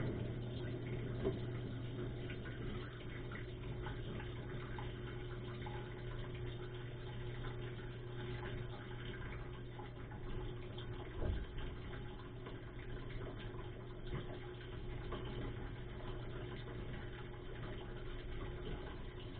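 Dishwasher running, heard from inside the tub: water spraying and splashing over a steady low hum from the wash pump motor, with a few short knocks.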